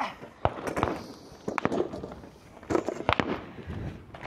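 Several pistol shots fired at irregular intervals, some in quick pairs.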